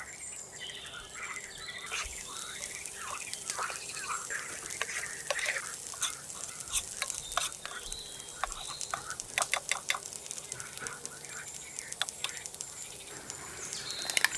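Food sizzling in a pan over a fire while it is stirred, with quick clicks and scrapes of the utensil against the pan, thickest midway through. Short high chirps sound over it most of the time.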